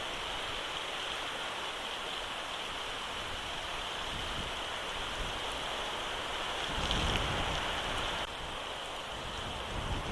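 Steady hiss of rain falling on and around the eagle nest. About two-thirds of the way through, a low rumble swells up and then cuts off suddenly.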